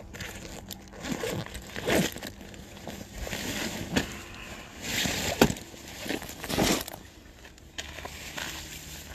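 Rustling and handling of fabric and a backpack close to the microphone, as cloth is pulled out of the bag, with irregular swells and a few sharper knocks.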